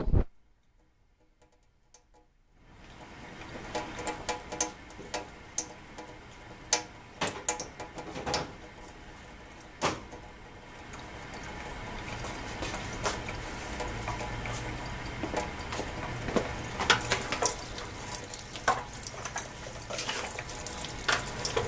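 Tap water running into a sink, with scattered clicks, knocks and clatter of things being handled under it as the furnace filter is washed. It starts after about two and a half seconds of silence, and a low hum joins the water about halfway through.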